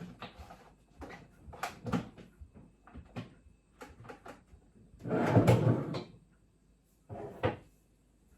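Household items being handled and put away: scattered clicks and knocks of containers being set down and moved, with a louder, second-long clatter about five seconds in and a shorter one near seven seconds.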